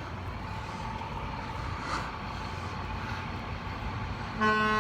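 Steady low rumble of idling vehicles, then near the end a loud blast of a fire truck's horn starts.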